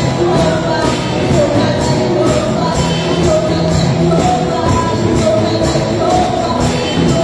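Live band with electric guitars and drums playing an upbeat song with a steady beat, a woman singing lead through a microphone and PA.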